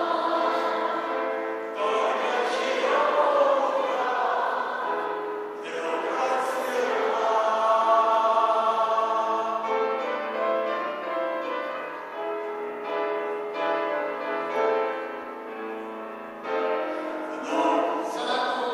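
Live performance of a song: amplified singing with musical accompaniment.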